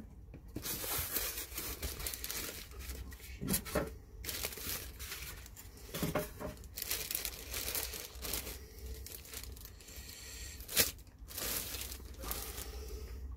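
Clear plastic wrapping crinkling and being pulled off a glass-topped bathroom scale in irregular rustling bursts, with a sharp knock about eleven seconds in.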